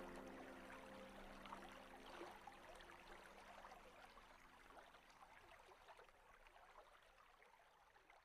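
Faint, fading outro of a slowed, reverb-drenched pop song: a few held notes ring out and die away in the first couple of seconds, leaving a soft hiss with fine crackles that fades toward silence.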